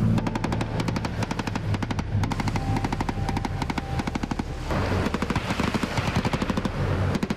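Automatic weapons firing rapid overlapping bursts, many sharp shots a second, over a steady low rumble.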